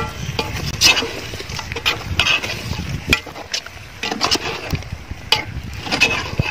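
A long metal spoon stirring chicken masala in a large aluminium pot, knocking and scraping against the pot in irregular strokes.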